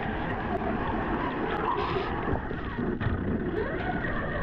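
RC monster truck running through water, its motor's whine sliding down and back up in pitch over a steady churning noise.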